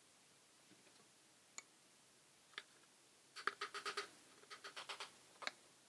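Spoon scraping and tapping against a glass Nutella jar and a plastic cup as the spread is scooped out: a few isolated light clicks, then two quick runs of ticks in the second half and one last click near the end.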